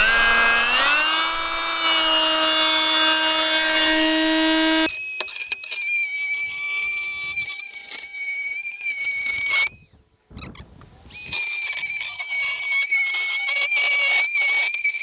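Power tool spinning up with a rising whine, then running steadily as it cuts into the van's sheet-metal body. About five seconds in the tone changes to a higher, steady whine; it stops briefly around ten seconds in and starts again.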